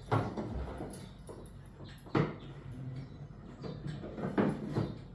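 Knocks and scrapes on the wooden case of a grandfather clock as it is worked at from inside: one right at the start, one about two seconds in, and two close together near the end.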